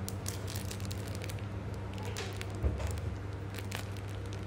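Thin clear plastic packaging bag crinkling and crackling in the fingers as it is pulled open, with a single soft thump a little past halfway. A steady low hum runs underneath.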